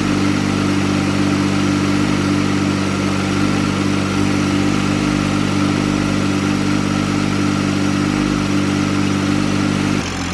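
Engine of a 2020 Toyota Supra, fitted with a Precision 6262 top-mount turbo, idling steadily. Near the end the idle note drops slightly lower and a little quieter.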